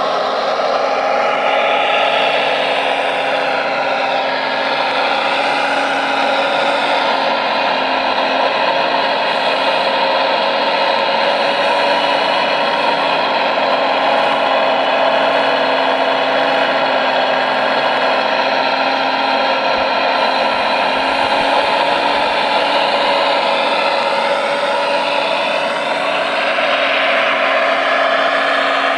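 Steady whine of a radio-controlled scale Liebherr R970 excavator's hydraulic pump, its pitch rising and falling now and then as the boom and log grapple are worked.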